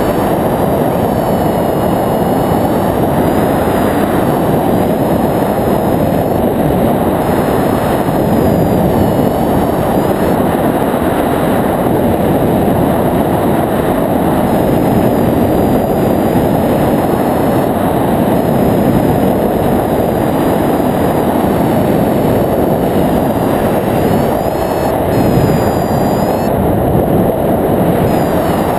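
Steady, loud wind rush of the airflow over a GoPro camera on a hang glider's control bar in flight. It is an even, low rushing noise throughout.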